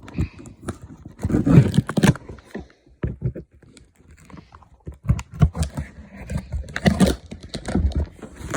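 Packing tape and cardboard being scraped and torn as a cardboard box is pried open with a phone charger plug, in irregular scratches, rips and knocks with a couple of heavier bursts.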